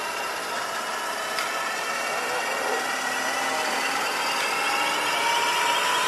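Large-scale radio-controlled helicopter running up on the ground: a steady mechanical whine from its engine and rotor, slowly rising in pitch and loudness as it spools up.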